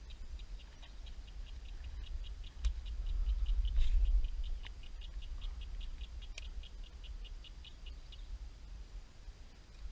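A small animal calling a long, even series of short high chirps, about five a second, that stops about eight seconds in, over a low rumble that swells around three to four seconds in.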